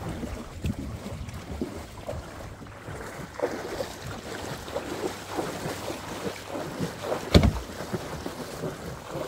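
Kayak paddling on a shallow river: irregular paddle splashes and water noise, with wind on the microphone. A single hard knock comes about seven seconds in.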